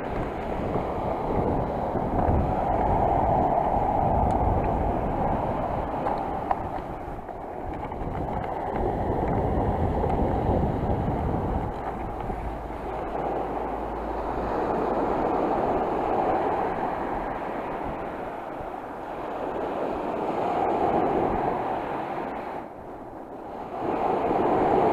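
Sea surf washing in slow swells every five or six seconds, with wind rumbling on the microphone during the first half.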